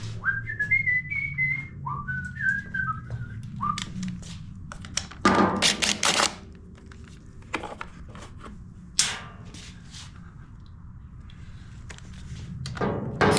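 A person whistling a short tune for about four seconds, followed by tools clattering and clinking, with a single sharp knock later.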